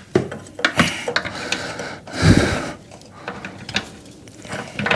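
Snowblower roller chain clicking and rattling as it is fed by hand around its sprocket, with a dull knock about two seconds in.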